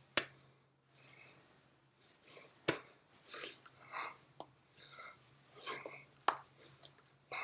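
Soft mouth noises from a person silently mouthing words while signing: breathy whispers, lip smacks and wet clicks, with a few sharp clicks spaced a few seconds apart. A faint steady low hum runs underneath.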